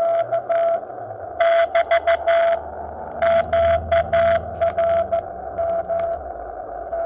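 Morse code (CW) signal received on the 40 m band by a Xiegu X6100 HF transceiver and played through its speaker: a single-pitched tone keyed on and off in short dots and longer dashes, over hiss.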